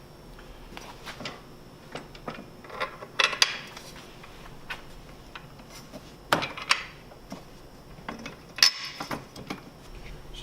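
Bolts, washers and nuts clinking and clicking as they are handled and fitted, in irregular short rattles with a few louder clacks.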